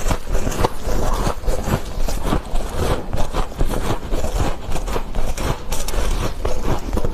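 Freezer frost crunching close to the microphone: a dense run of rapid, irregular crackly crunches and scrapes with no pause.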